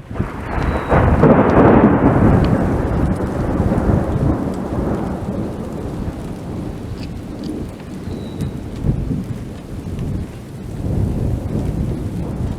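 Rolling thunder from a severe thunderstorm, loudest about a second or two in and slowly fading, with further rumbles later, over steady rain.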